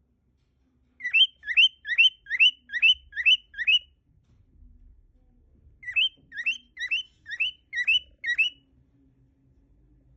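Male cockatiel whistling two phrases of short rising notes, about seven quick notes in each, roughly two to three a second, with a pause of about two seconds between the phrases.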